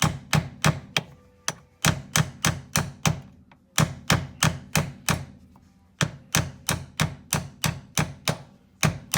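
Hammer tapping on a punch in quick, sharp strikes, about three a second, in several runs with short pauses between them, driving a stuck pivot pin out of the shifter mechanism.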